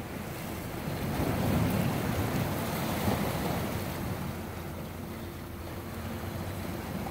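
Ocean waves washing against a rocky shore, with wind on the microphone; one wave swells up about a second in and dies away over the next few seconds.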